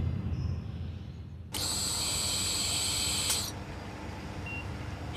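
A steady hiss starts abruptly about a second and a half in and stops with a click nearly two seconds later, leaving a fainter hiss. A faint short beep sounds near the end.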